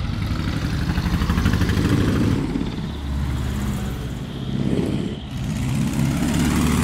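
Engines of LED-decorated 'dekotora' trucks running as they drive slowly past on the street; the engine sound swells and eases several times as the trucks go by.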